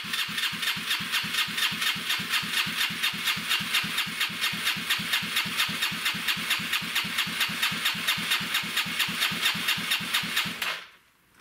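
Electric starter cranking the 1985 Honda Elite 150 Deluxe's single-cylinder four-stroke engine: a steady whine with even compression pulses about four to five a second. The engine does not catch, and the starter is released near the end.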